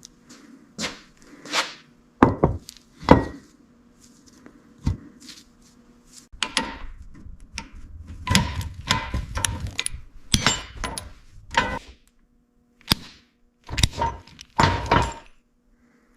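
Irregular knocks, clanks and thuds from tools and parts being handled and struck during workshop work, with a busier run of knocking in the middle and a faint steady hum underneath.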